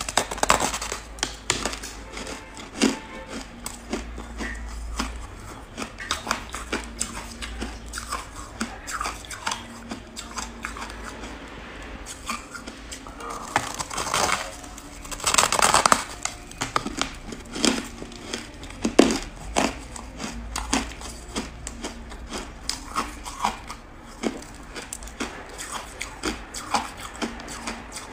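Close-up crunching of buckwheat-coated ice: sharp cracks as chunks are bitten off, then irregular crunching as they are chewed. The densest, loudest crunching comes around the middle, about fifteen seconds in.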